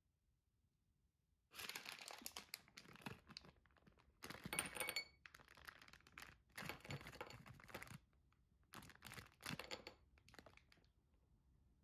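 Packaging crinkling and rustling as it is handled, in four bursts of crackling over about nine seconds.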